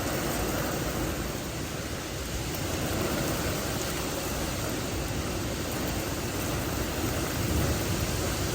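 Heavy rain falling steadily, a constant even hiss and patter.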